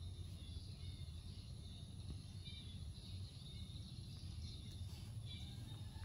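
Quiet background: a steady low hum with a thin steady high whine, and faint bird chirps scattered through it.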